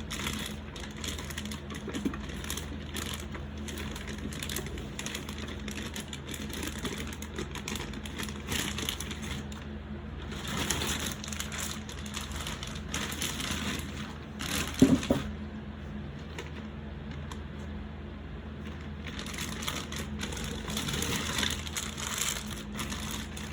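Packaging being handled and pulled off a toy playset piece: irregular rustling and crinkling, with one sharp knock about fifteen seconds in.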